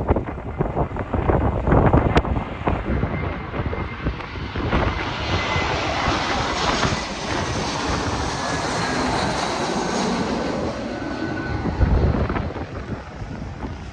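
Jet airliner passing, its engine rush swelling from about four seconds in and fading after about eleven seconds, with a faint whine that drops slightly in pitch. Strong wind gusts buffet the microphone at the start and again near the end.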